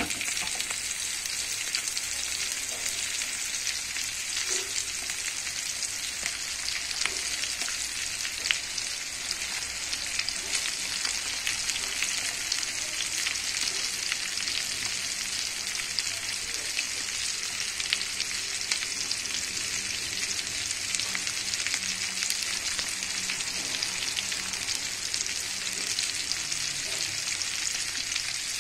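Small cornflour-coated whole fish frying in hot oil in a frying pan: a steady, dense sizzle with many fine crackles.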